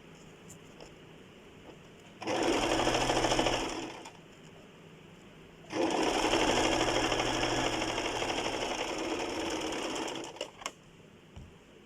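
Sewing machine stitching in two runs, one of about two seconds and a longer one of about five seconds, each slowing to a stop; a couple of sharp clicks follow the second run.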